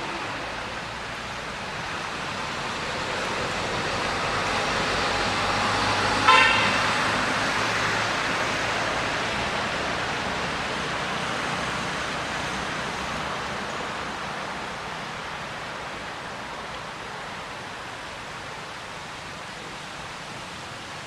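A road vehicle passing: a steady rushing noise that swells over the first six seconds and then slowly fades, with one short, loud horn toot about six seconds in.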